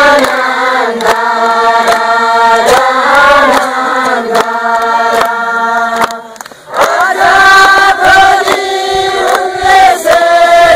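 A choir singing as background music, with long held notes and a short break about six seconds in.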